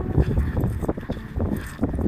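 Wind buffeting the microphone, a heavy uneven low rumble, with footsteps on a paved path underneath.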